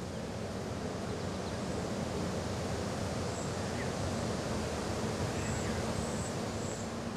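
Steady rushing noise with a low hum underneath, and a few faint, short high-pitched chirps in the second half.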